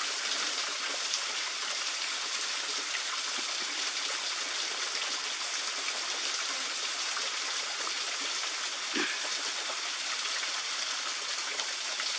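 Small waterfall spilling down a mossy rock face: a steady, even rush of falling water.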